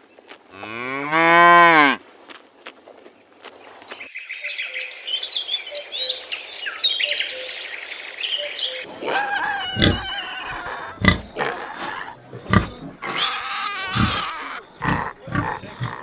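A cow mooing once, a loud call whose pitch rises and falls, about a second in. Later come high chirping calls, then a run of short, sharp sounds.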